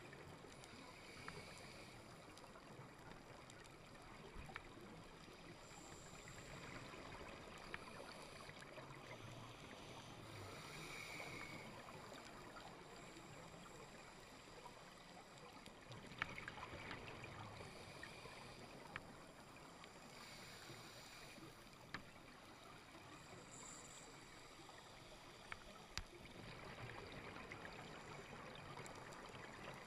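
Faint underwater ambience heard through a camera housing on a scuba dive: a steady low hiss with fine crackle and a few sharp clicks, and a short rush of exhaled regulator bubbles about every five seconds.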